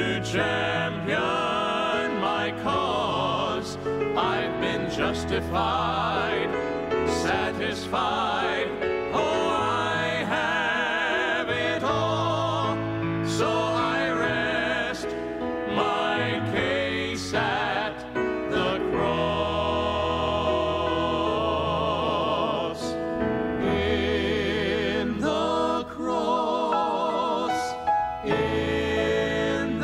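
Slow sacred music: a vibrato melody over long held bass notes, without pause.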